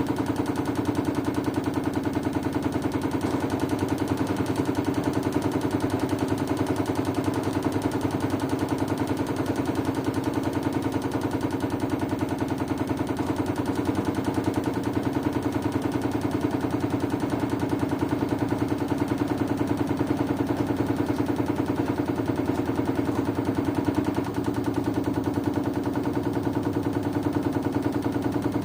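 LG washing machine running with a steady drone and a fast, even rattle that holds unchanged throughout.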